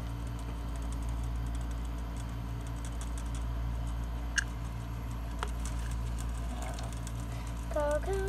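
A pet rat scrabbling in wood-shaving bedding and on the wire cage, a light patter of small scratches and ticks with a couple of sharper clicks, over a steady low hum.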